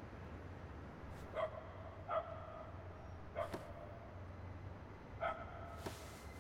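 A dog barking four times, short single barks spread irregularly over several seconds, over a faint low hum.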